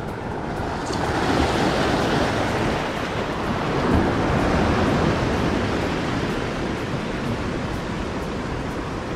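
Sea surf breaking and washing over a rocky shore, a broad rushing that swells about a second in and eases off toward the end, with wind rumbling on the microphone.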